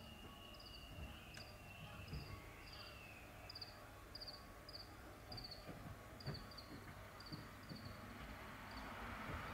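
Faint, short high chirps repeating about twice a second over a low background hum, with a hiss swelling near the end.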